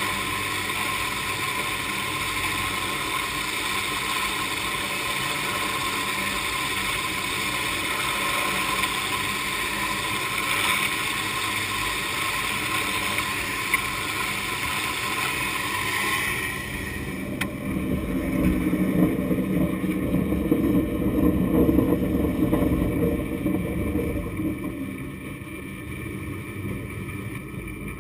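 San Francisco cable car haul cable running in the underground slot against the car's grip: a steady metallic hiss and whine with several high ringing tones, and sparks at the grip showing the steel cable rubbing on it. About sixteen seconds in the sound changes abruptly to a louder, lower rumble of the cable and grip moving at full speed.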